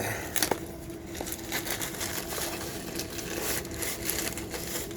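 Mail packaging crinkling and tearing as it is forced open by hand: a continuous scratchy rustle broken by many small crackles and clicks, over a faint steady hum.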